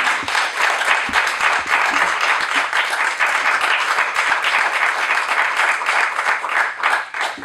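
Audience applauding: dense, steady clapping that starts to thin out near the end.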